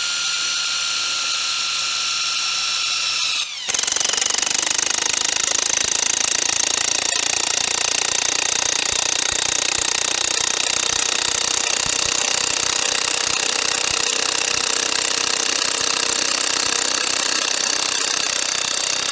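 Makita DTW1001 18 V cordless 3/4-inch impact wrench driving a 200 mm coach bolt into a log. For the first few seconds its motor spins the bolt with a steady whine and no hammering. After about three and a half seconds the impact mechanism kicks in and hammers rapidly and steadily as the bolt is driven home, then stops suddenly near the end.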